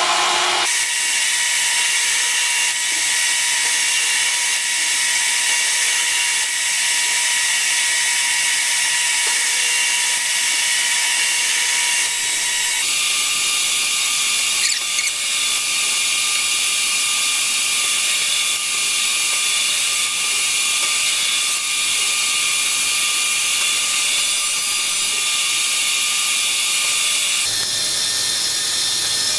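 Metal lathe running, a steady mechanical whir with a thin gear whine, while cutting a double-start thread. The whine steps up a little about halfway through.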